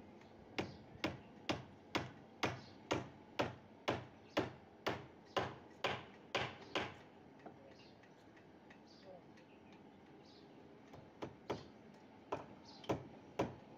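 Hammer strikes, sharp and evenly spaced at about two a second. They stop for about four seconds in the middle and then start again.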